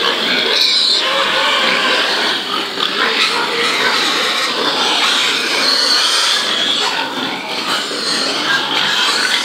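Many young pigs calling at once: a steady din of overlapping high-pitched squeals and grunts.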